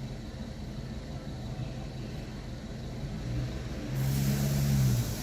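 Mini Cooper R56 engine idling steadily, its low hum growing louder for about a second near the end.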